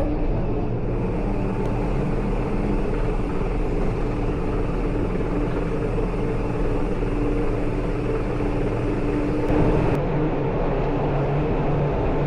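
A vehicle running steadily, a continuous mechanical noise with a low steady hum whose pitch shifts about nine and a half seconds in.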